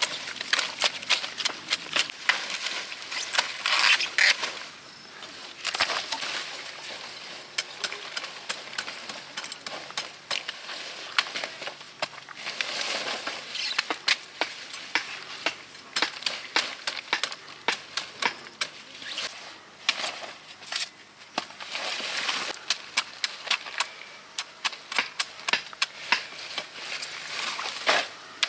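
Irregular sharp strikes of a digging tool chopping into soil and roots while wild taro is dug up, with stretches of rustling between the strikes.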